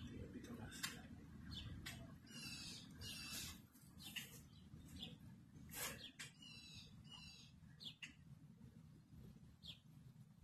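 Faint songbird chirps and calls, some in quick trilled runs, over a low steady rumble.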